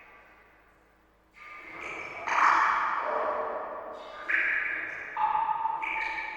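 Water drops plinking into water: a string of about six sudden pitched drips, each ringing briefly and fading, starting after a quiet first second or so.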